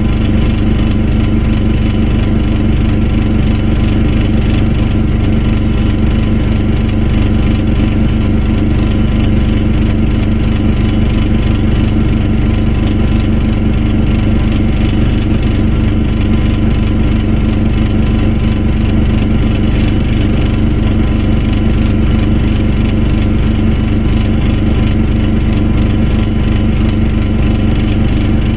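An engine running at a steady, unchanging speed, with a constant high whine over its low hum.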